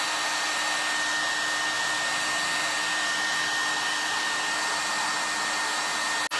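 Handheld dryer running steadily, blowing air over freshly painted craft work to dry the paint: a loud, even rush of air with a steady high whine, broken for a moment near the end.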